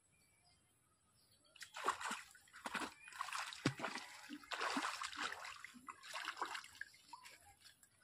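Water splashing and sloshing in a series of irregular bursts, starting about a second and a half in and dying away near the end.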